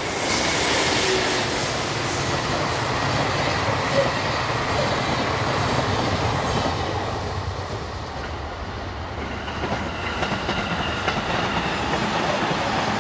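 EF81 electric locomotive and its train of blue sleeper coaches passing at speed, with steady wheel-on-rail running noise that eases a little about eight seconds in. Near the end a commuter electric train passes on another track.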